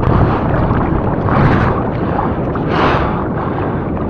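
Loud, steady rush of churning surf and water against a point-of-view camera in the waves, swelling briefly a couple of times.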